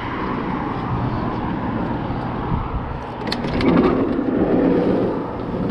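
The sliding side door of a 1973 VW Westfalia camper bus is unlatched with a few sharp clicks a little over three seconds in, then rolls open along its track for about a second.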